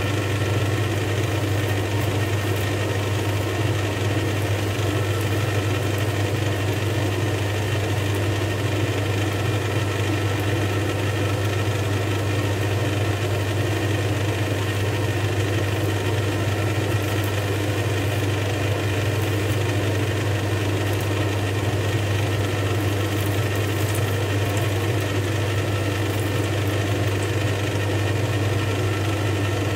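A steady machine hum with a strong low tone and a broad hiss over it, unchanging throughout.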